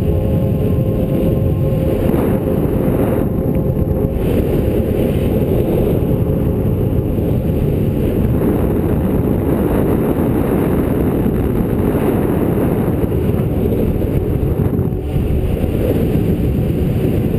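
Steady wind noise on the camera microphone from the airflow of a paraglider in flight, a loud, low rumbling rush.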